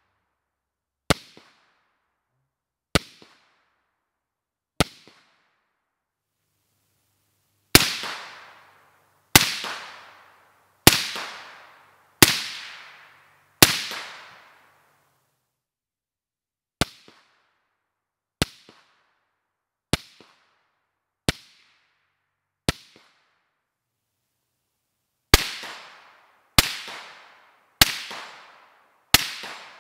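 Suppressed AR-pattern rifles firing about seventeen single shots in separate strings, roughly one shot every one and a half seconds. Each shot is a sharp crack with a short tail, and in two of the strings the tail rings out longer.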